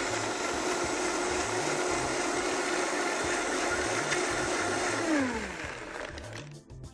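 Vitamix blender running at high speed, puréeing carrots, ginger, orange juice and ice into a smooth frozen drink. About five seconds in the motor whine falls in pitch and fades as the blade spins down.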